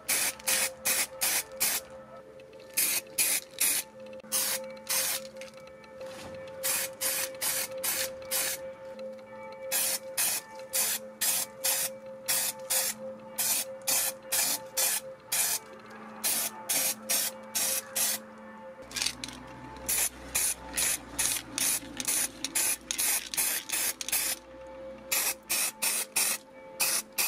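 Rust-protection primer being sprayed onto welded steel in many short hissing bursts, a few a second, with brief pauses between runs.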